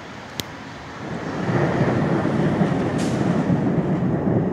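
Rolling thunder: a low rumble that swells up about a second in and keeps rolling.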